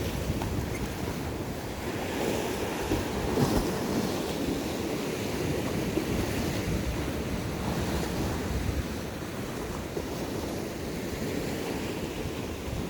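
Sea waves washing against shoreline rocks, mixed with wind buffeting the microphone; the surge swells a little about two to four seconds in.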